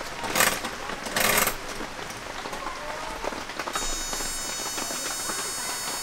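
Paseco kerosene heater being lit by hand: two short scraping clicks as the wick knob is turned, then from about four seconds in a steady high-pitched electric whine as the igniter is held down to light the wick.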